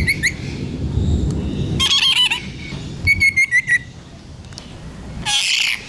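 Birds chirping and whistling in quick, short notes, with a harsher squawk near the end. A low rumble sits under the first two seconds.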